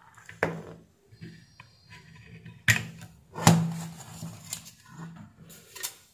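Sheet-metal power-supply cover, with its small cooling fan attached, being handled and moved on a workbench: five sharp metallic knocks and clatters, spread a second or so apart, with quieter rustling between them.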